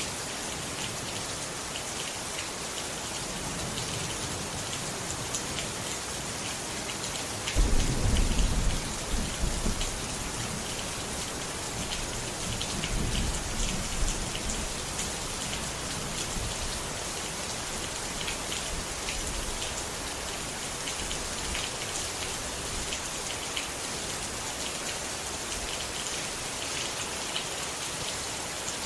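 Steady heavy rain pattering on a surface, with a clap of thunder breaking suddenly about seven and a half seconds in and rumbling for a couple of seconds, and a softer roll of thunder a few seconds later.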